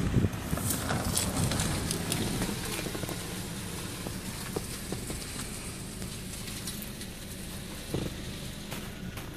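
Hyundai NF Sonata's LPG engine idling, heard from inside the cabin as a steady low hum, with scattered light clicks and knocks.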